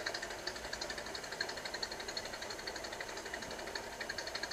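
Steam locomotive chuffing in a fast, even rhythm of short beats that does not change.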